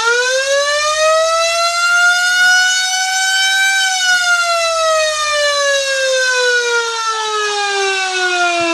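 Boat fog-horn siren winding up to a loud, high wail. Its pitch climbs to a peak about four seconds in, then slides steadily down as it runs down.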